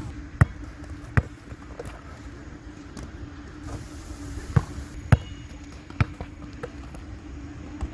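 A basketball bouncing and landing: a handful of sharp, irregularly spaced thuds over a steady low hum.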